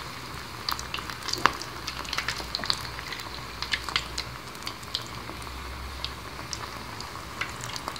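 Breadcrumb-coated potato croquettes deep-frying in a saucepan of hot oil: a steady sizzle with frequent crackling pops.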